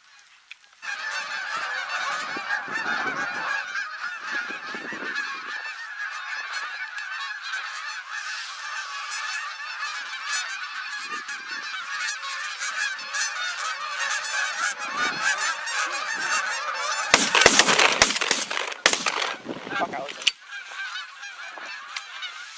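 A flock of Canada geese honking in a dense, continuous chorus that begins abruptly just under a second in. A cluster of loud, sharp bangs breaks in about 17 seconds in.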